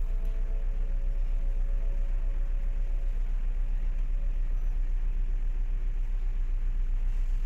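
Steady low rumble of a ship's diesel engine running, with a fast, even throb.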